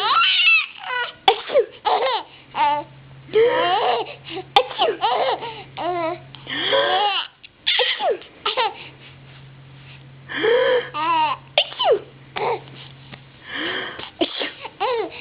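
A young child laughing hard in repeated high-pitched bouts, mixed with babbling, set off by someone's pretend sneezes.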